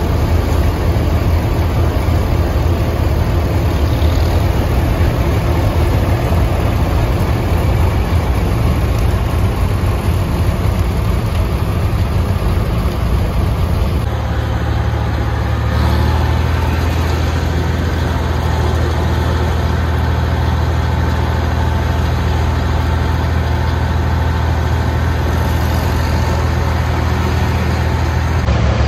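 Several old farm tractor engines idling close by, a steady low drone. The sound changes abruptly about halfway through, as another group of running tractors takes over.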